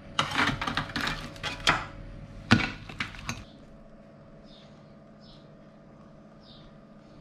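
Metal kitchen tongs clattering and knocking against a metal baking tray and the hard shell of a roasted lobster as it is lifted onto a ceramic plate: a run of sharp knocks and scrapes over the first three and a half seconds. After that only a steady low hum remains.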